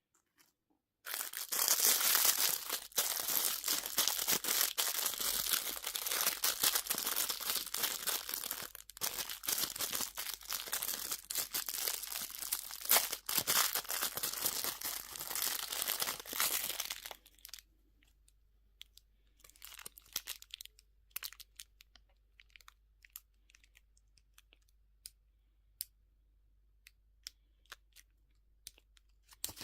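Candy packaging crinkling and tearing as it is opened. The sound is a dense, continuous crackle for about sixteen seconds, then thins to scattered small crinkles and clicks.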